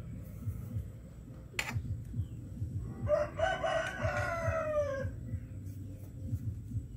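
A rooster crowing once, about two seconds long, starting about three seconds in and dropping in pitch at the end. A low rumble runs underneath, with a single sharp click about a second and a half in.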